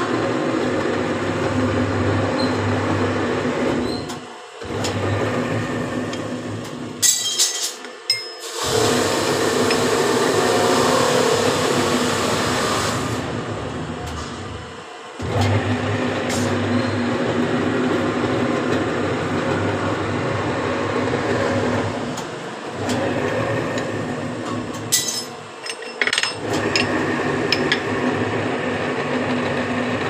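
Bar-bending machine running with a steady hum that drops out briefly several times, with sharp metallic clinks as a steel flat bar is set against the bending pin and bent.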